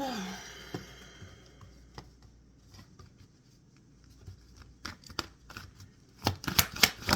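Tarot cards being handled and shuffled: scattered light clicks and snaps of cards, then a quick flurry of card clicks near the end.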